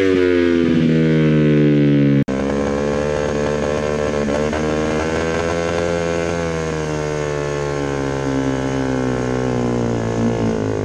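Off-road shifter kart buggy's engine running under load, its pitch falling over the first two seconds, then heard on board with the revs wavering and swinging. It surges and breaks up from serious fueling issues.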